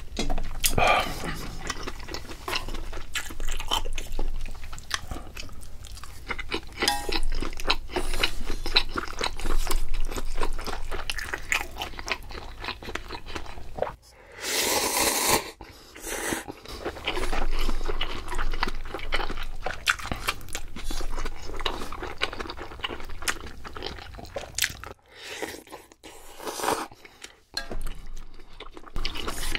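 A person eating close to the microphone: steady chewing and biting with many small crunches and mouth clicks, and a louder rushing noise of about a second and a half around the middle.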